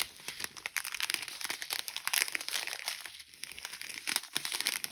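Small plastic bags of diamond painting drills crinkling and crackling as they are handled and sorted, with irregular clicks throughout.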